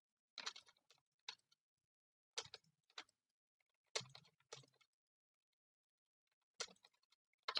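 Faint, scattered clicks of a computer keyboard and mouse, one to three at a time with pauses between.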